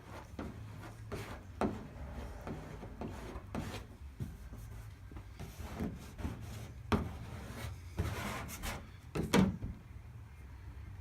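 Irregular rubbing and scraping strokes on a paper-backed vinyl decal as its paper is worked and separated between sections, with the loudest scrape near the end.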